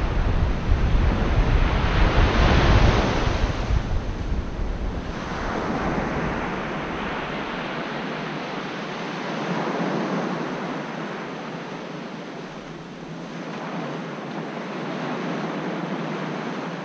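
Sea surf washing onto a sandy beach, the wash swelling and fading every few seconds, about four times. For the first few seconds wind rumbles on the microphone.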